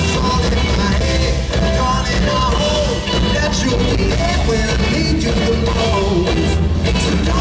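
Live band playing loud pop-rock: electric guitar, keyboards and drums under a male singer's voice.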